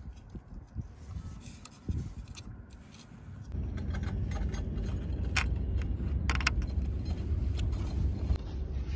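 Small metal clicks and scrapes as a steel control cable and its metal end fittings are handled and hooked up. About three and a half seconds in, a steady low rumble starts and continues underneath, with a few sharper clicks over it.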